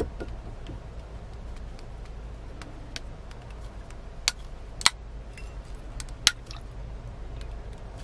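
A few sharp plastic-and-glass clicks and taps as a small flavour bottle is pressed and twisted onto the neck of a glass liquor bottle, the three loudest about four, five and six seconds in, over a low steady hum.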